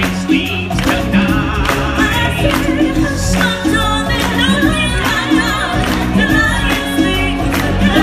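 Live stage-show music: voices singing with vibrato over a steady drum beat.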